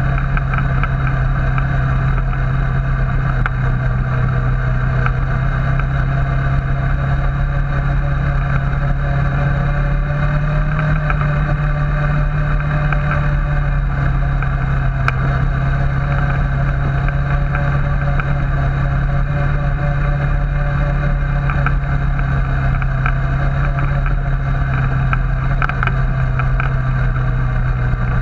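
Suzuki KingQuad 400 FS ATV's single-cylinder engine running at a steady pace while under way, a continuous drone whose pitch barely changes.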